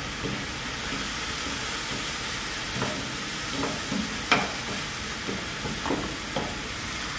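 Rice frying in a non-stick pan, sizzling steadily while a wooden spatula stirs and scrapes it, with scattered knocks of the spatula against the pan, the sharpest a little past the middle.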